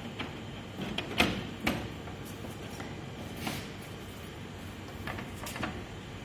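A few sharp clicks and knocks of plastic parts being handled and slid, from the air conditioner's filter and front panel being fitted back, over a steady low hiss.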